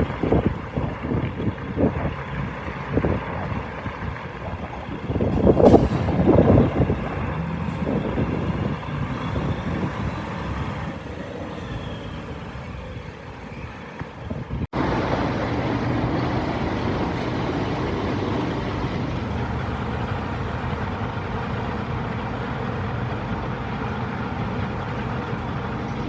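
Diesel engine of a DAF CF suction excavator truck running under load, with a few louder surges early on. After a cut it settles into a steady drone.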